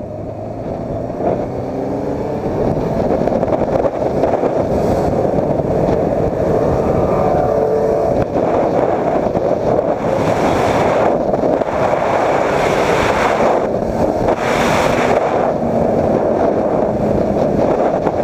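Motorcycle engine accelerating under heavy wind noise on the microphone; the engine's pitch climbs over the first several seconds, and the wind rush surges a few times about ten to fifteen seconds in.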